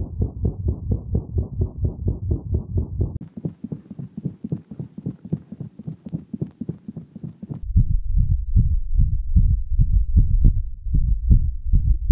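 Recorded cat heart sounds played as auscultation examples of a heart murmur, a gallop rhythm and an arrhythmia: a fast run of heartbeats, with a hiss over the beats from about three seconds in. At about seven and a half seconds the hiss stops and the beats become louder, deeper and less even.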